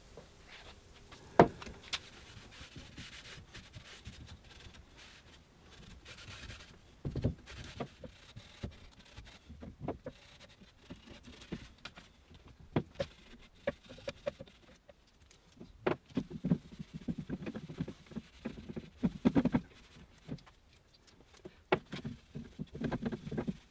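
Quiet rubbing of a stockinette cloth working oil-wax finish into a hardwood stool, in short patches. Scattered light knocks and ticks come as the wooden stool is handled and shifted on the bench.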